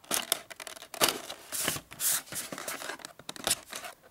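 Scissors cutting through the cardboard and plastic of a blister-pack toy package: several separate snips with scraping and rustling of the card between them.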